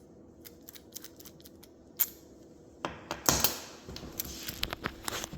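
Sharp small metallic clicks and rattles from handling a storm door lock and its key. About three seconds in there is a louder stretch of rubbing and handling noise, then more clicks.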